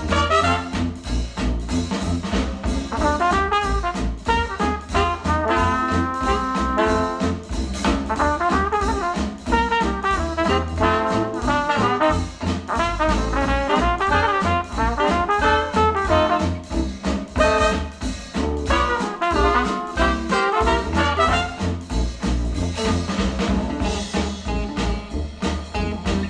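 Instrumental music played through Klipsch The Fives powered bookshelf speakers, with a steady heavy bass beat under shifting melody lines.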